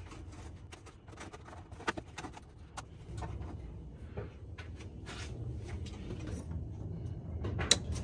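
Scattered small clicks and rattles of hands working a plastic rocker light switch and its wiring into the wall, a few sharper clicks among them, over a low steady hum.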